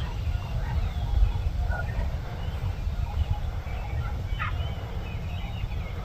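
Wild turkeys gobbling faintly in short scattered calls, one clearer about four and a half seconds in, over a steady low rumble.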